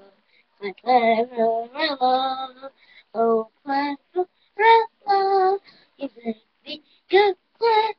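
A child singing wordlessly or unclearly in short held notes, broken into many brief phrases with gaps between them.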